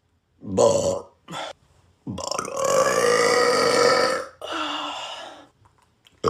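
A man burping four times in a row: a short burp about half a second in, a very brief one just after, then a long drawn-out burp of about two seconds, followed by a shorter one.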